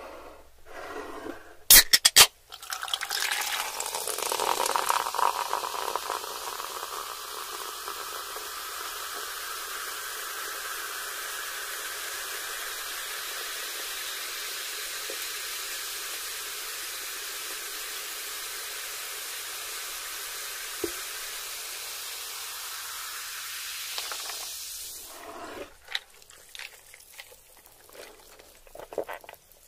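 A few sharp clicks about two seconds in. Then lemon-lime soda is poured from a can into a glass of ice, fizzing with a steady hiss for about twenty seconds that stops suddenly. Near the end come a few short, quiet sips through a straw.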